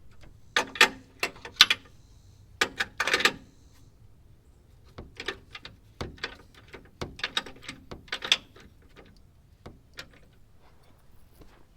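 Sharp clicks and knocks of hand tools and metal bumper parts being worked, in short irregular bursts, some quick runs of several clicks together.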